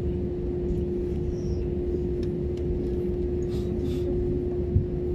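Steady cabin rumble of an airliner's jet engines heard from inside the passenger cabin, with a steady hum over it, while the plane is still on the ground before takeoff. A single small knock near the end.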